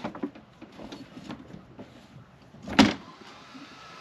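Gear being handled in an inflatable dinghy: scattered light knocks and clunks, then one loud knock near the end, after which a steady hum begins.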